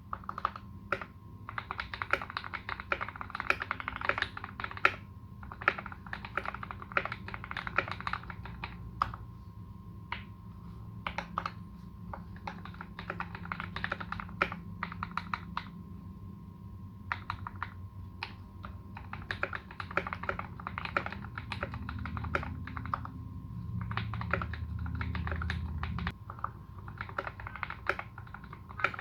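Typing on a custom Canoe Gen2 mechanical keyboard with lubed, modded Alpaca v2 linear switches and GMK Dolch keycaps: quick runs of clacky keystrokes in bursts, with short pauses between the runs.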